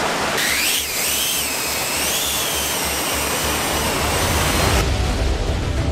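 Drone motors and propellers whining, the pitch climbing sharply about half a second in, then wavering up and down as the drone flies. Music with a low beat takes over near the end.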